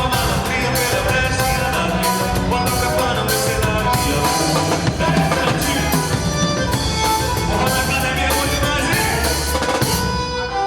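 Forró song playing loudly, with singing over a steady drum beat.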